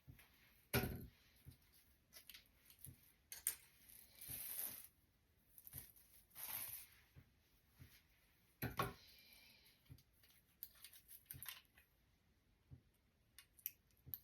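Velcro hair rollers rasping as they are pulled out of the hair, in short scratchy stretches, with two sharp knocks, one about a second in and one near nine seconds.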